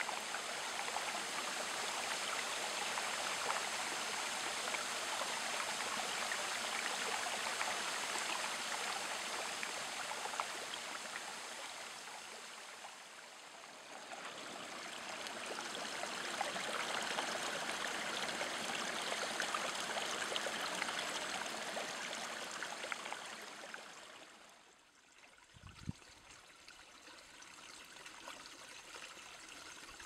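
Shallow creek water running and trickling under and around thin shelf ice, a steady babble. It eases briefly about halfway through, then drops to a softer trickle near the end, with a single low thump.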